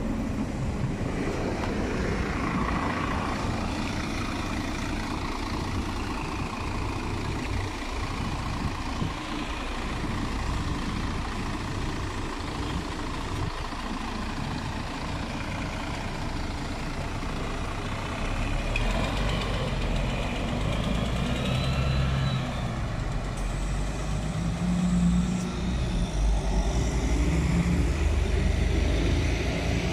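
Mercedes-Benz CapaCity articulated city bus's diesel engine running at the stop, then pulling away, its low rumble getting louder about two-thirds of the way through, with road traffic around it.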